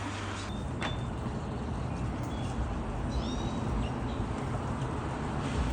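Steady rushing outdoor noise with a low rumble, and a few short high bird chirps about a second in and again around three seconds in.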